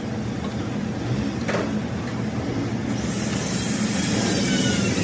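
Steady low hum of workshop machinery, with a single sharp metal knock about one and a half seconds in as the steel spindle is set against the lathe's four-jaw chuck. A faint high hiss joins about three seconds in.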